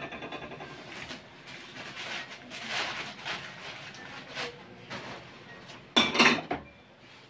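Ceramic plates clinking and clattering as they are unpacked and set down on a stack, with crumpled newspaper wrapping rustling between them; the loudest clatter comes about six seconds in.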